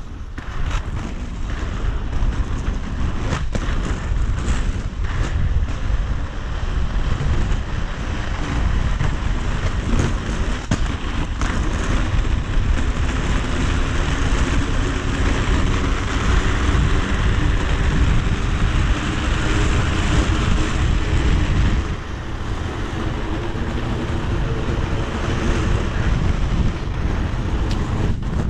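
Wind buffeting the microphone over the rolling noise of inline skate wheels on asphalt at speed, with a few sharp clicks; the rolling noise grows stronger through the middle and drops back about three-quarters of the way through.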